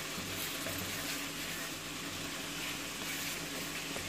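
Potato curry sizzling steadily in a non-stick wok as it is fried down, with a wooden spoon stirring through it.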